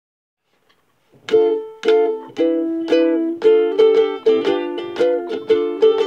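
Ukulele strumming chords as a song's instrumental introduction. It starts about a second in, with single strums about twice a second, then picks up into a busier strumming rhythm.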